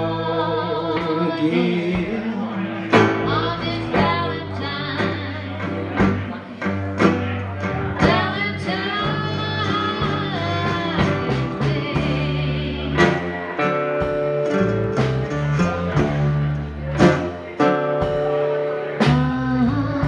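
Live blues band: a woman singing over a resonator guitar, an acoustic guitar and drums.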